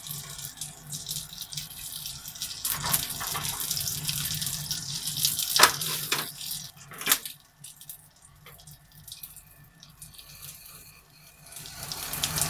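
Nori-wrapped chicken-mince rolls sizzling in a non-stick frying pan, with a few sharp clicks of chopsticks against the pan, then a quieter lull. Near the end a rough scraping starts: sesame seeds being ground in a ceramic mortar bowl with a wooden pestle.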